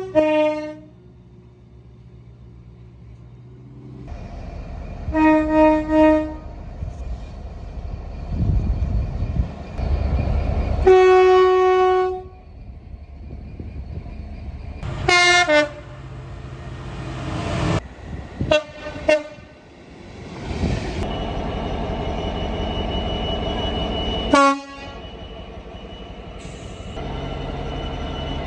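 Train horns sounding a series of separate blasts, some two-note, one held for about a second. Between the blasts is the rumble of trains running on the track.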